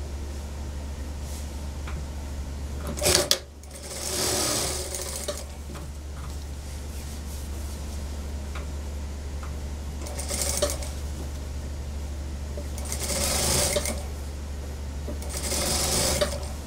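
Industrial lockstitch sewing machine stitching suit-jacket fabric in several short runs of a second or so each, the first starting with a sharp clatter about three seconds in. A steady low hum runs underneath between the runs.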